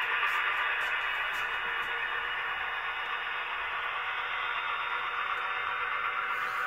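Model train running along the track: a model Class 68 diesel locomotive hauling passenger coaches, giving a steady whirring hiss of motor and wheels on the rails.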